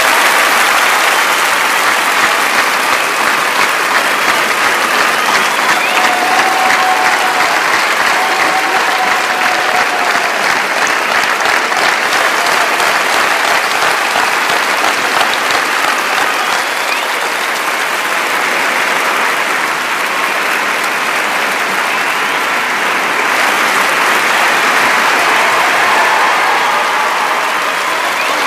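An audience applauding steadily, with a dense, continuous clapping.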